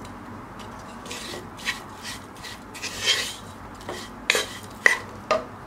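Wooden spoon scraping and stirring masala-coated prawns around a pan, a string of irregular short scrapes over a faint steady hiss.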